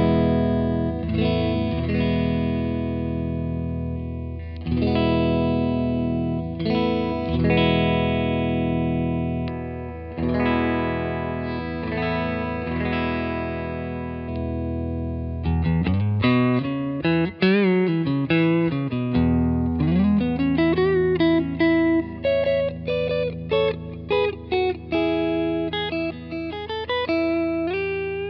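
Clean electric guitar: a Mexican Fender Telecaster on its Cavalier 'She Wolf' neck pickup, through a Vintage Sound 22SC amp with Eminence speaker and spring-style reverb. It plays ringing chords struck every two to three seconds, then, about halfway through, switches to quicker single-note lead lines with string bends.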